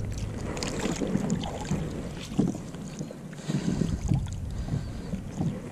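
Water splashing and sloshing beside a small plastic boat as a hooked catfish is worked into a landing net, with irregular soft knocks and wind on the microphone.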